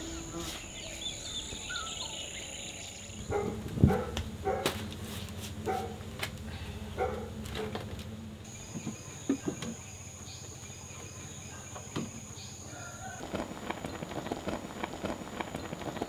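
Rural outdoor ambience: small birds chirping over a steady high-pitched insect buzz that drops out for a few seconds partway through. Scattered sharp clicks and knocks run through it, the loudest about four seconds in.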